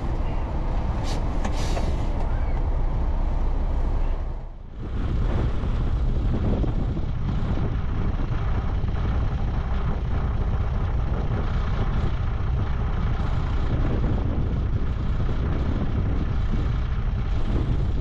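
MAN 4x4 truck's diesel engine running steadily, a deep rumble with a short hiss about a second in.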